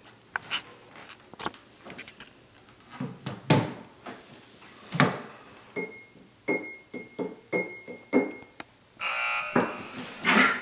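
Dramatic background music with piano: sparse notes and a few sharp hits, then a run of short repeated notes and a swelling rush near the end.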